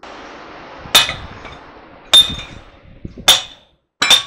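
Hammer striking a steel pin in a truck steering knuckle, driving it down: four sharp metallic blows about a second apart, each with a brief ringing, over a steady hiss in the first couple of seconds.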